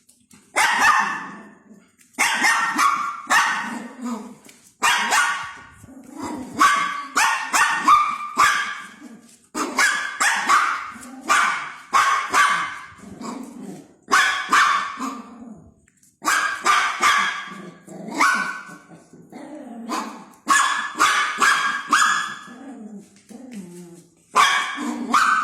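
A dog barking over and over in short volleys of a few quick barks each, with brief pauses between the volleys.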